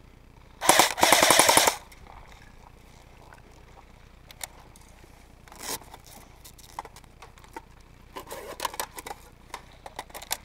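An airsoft AK-style rifle firing one full-auto burst of about a second, a rapid, even rattle of shots. A few fainter scattered clicks and knocks follow.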